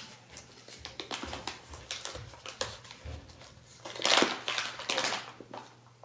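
Crinkling and rustling of a packaged coffee bag as it is pulled open and handled, in irregular crackles with the loudest stretch about four seconds in.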